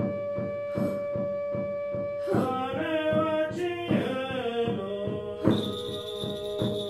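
Background music: a steady drum pulse under a held drone note, joined about two seconds in by a wavering, sliding melody.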